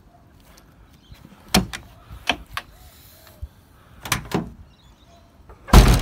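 The rear door of a Toyota Hilux's load area being unlatched and opened: a few sharp clicks and knocks, then one loud heavy thud near the end as it swings open.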